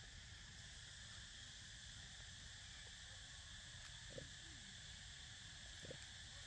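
Steady, faint chirring of insects. Two short soft sounds stand out, about four and six seconds in.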